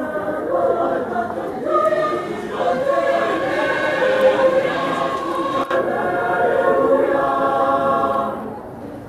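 Mixed choir of men's and women's voices singing held chords together; the singing drops away about eight seconds in.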